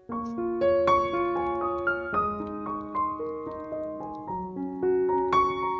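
Background piano music: a gentle melody of single struck notes, each ringing on and fading, with a new phrase starting right at the beginning.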